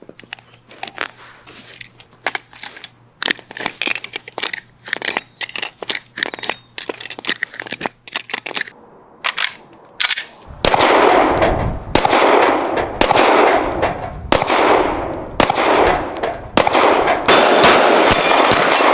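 Full-steel Glock-style replica pistol: a run of sharp metallic clicks and clacks from its moving parts. About ten seconds in, a much louder dense rattle begins and comes in repeated bursts of rapid fire, with a metallic ringing over it.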